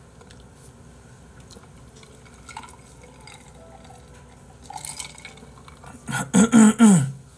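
A man drinking from a glass, with faint glass and liquid sounds. Near the end comes a loud wordless vocal sound from him: three or four short pulses that fall in pitch.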